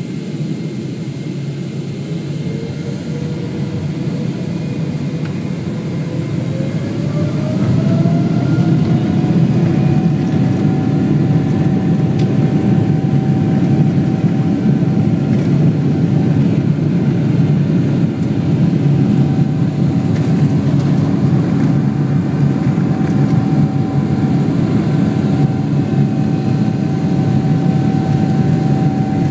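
Boeing 777 jet engines heard from inside the cabin, spooling up to takeoff thrust: a whine rises in pitch for a few seconds, then holds steady over a loud, rumbling cabin roar that grows louder as the power comes up.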